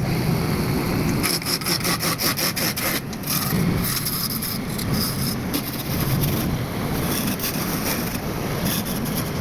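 Wood lathe running, with a turning chisel scraping and cutting into the spinning wooden blank over a steady motor hum. For about two seconds near the start there is a rapid clicking, around five clicks a second.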